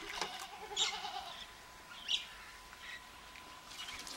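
A goat bleats once, a quavering call about a second long, followed by a couple of short clicks.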